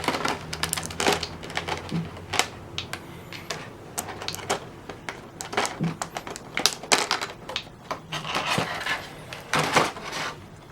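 Small plastic action-figure accessory parts clicking and knocking as they are handled and the long joint sticks are pulled out, with a few short rustles.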